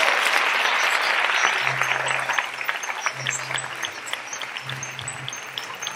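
Audience applauding after the young orchestra's piece, heavy at first and thinning out after about two seconds into scattered claps.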